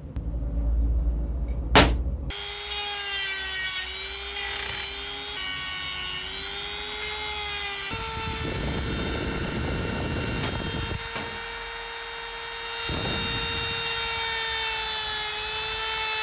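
A sharp click about two seconds in, then a handheld rotary tool with a small abrasive stone running at a steady high whine whose pitch wavers slightly. Rasping grinding noise comes and goes over the whine as the stone is pressed against the saw's cast metal housing, mostly in the middle of the stretch and again near the end.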